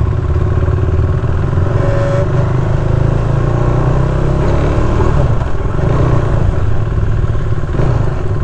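KTM RC390's single-cylinder engine running under way, its note rising and falling as the bike is ridden.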